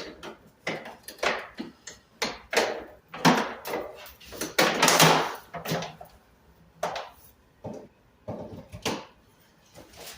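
Irregular clatter, knocks and scraping of equipment being handled while the sander and dust extractor are hooked up and plugged in, with the loudest knock about five seconds in.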